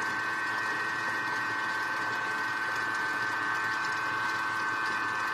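Thermomix food processor's motor running steadily at speed 4–5 with an even, high whine, its blade mixing cream cheese and eggs into a smooth batter.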